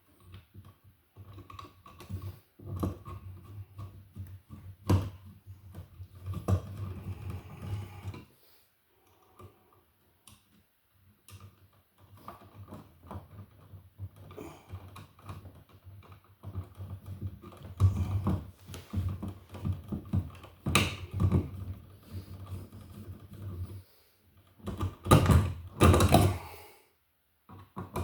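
Irregular clicks, knocks and scrapes of electrical wires being pushed into a wall box and a receptacle being handled. They come in clusters with short pauses, the loudest knocks near the end.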